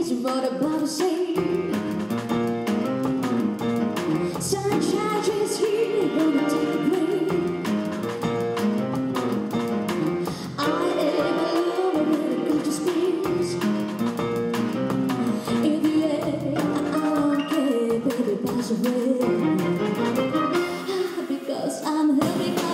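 A woman singing into a microphone with a string ensemble of violins, cellos and double bass accompanying her.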